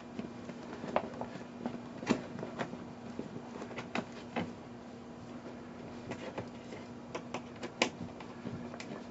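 Scattered small clicks and taps of small screws and nuts being handled and started by hand through a pannier's backing plate, the sharpest about two seconds in and near the end, over a steady low hum.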